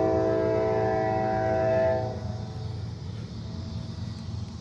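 A locomotive air horn sounding a long blast, a chord of several steady notes, that cuts off about two seconds in, over a steady low rumble from the approaching train.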